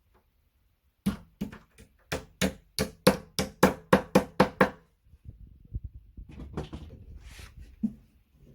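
A run of about a dozen quick wooden knocks, coming faster towards the end, as the flat-pack bedside table is knocked or tapped into place. After that come quieter scraping and handling sounds on the furniture panels.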